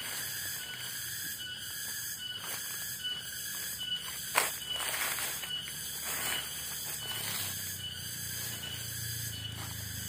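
Tropical forest ambience: insects calling in a steady chorus, with a high buzz that pulses about twice a second over a couple of steady high tones. A single sharp snap comes a little over four seconds in, and a low hum grows in the second half.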